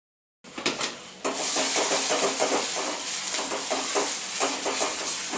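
Chopped onions, now turning soft, sizzling in hot oil in a kadhai while a spatula stirs and scrapes them in repeated strokes. The sound cuts in suddenly about half a second in, with a few clicks before the steady sizzle comes up.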